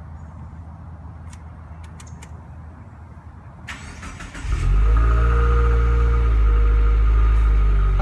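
2016 Subaru WRX's turbocharged 2.0-litre flat-four, on its stock exhaust, being started: a low hum and a few clicks with the ignition on, a brief crank about three and a half seconds in, then the engine catches and idles loud and steady through the exhaust tips.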